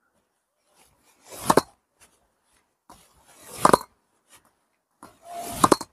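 A tennis racket spiking a ball down onto a hard court three times, about two seconds apart. Each stroke is a short rush of noise leading into a sharp pop of strings on ball as it is driven into the court.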